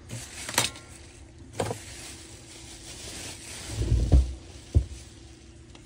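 Scattered clicks and knocks of small tools and parts being moved about on a workbench, with a heavier low thump about four seconds in.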